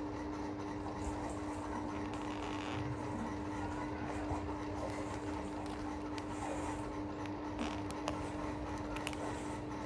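Steady mechanical hum, a constant low tone over an even hiss, with a few faint clicks.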